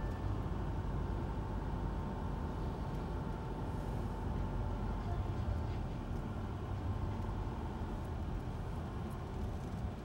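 Steady low rumble of a car driving on an asphalt road, engine and tyre noise heard from inside the cabin.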